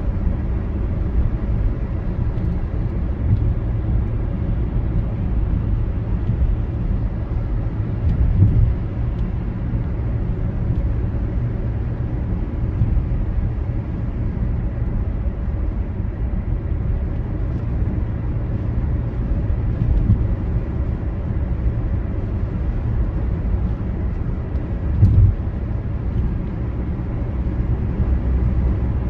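Steady low road and engine rumble heard from inside a moving car's cabin, with two brief louder bumps, one about eight seconds in and one near the end.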